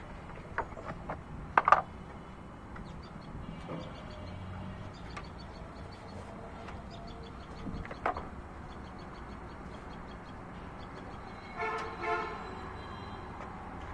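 A few sharp clicks and knocks, the loudest about two seconds in and another near the middle, over a low steady background hum, then a short vehicle horn toot near the end.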